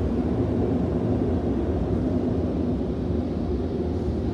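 Automatic car wash air dryers blowing on the car, a steady rush of air heard from inside the car's cabin.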